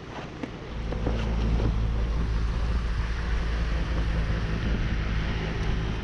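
Wind buffeting the microphone: a heavy low rumble that sets in about a second in and holds, over a steady wash of wind and water.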